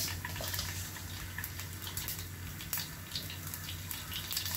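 Mustard seeds and garlic cloves sizzling in hot oil, with many small irregular pops and crackles as the mustard seeds splutter.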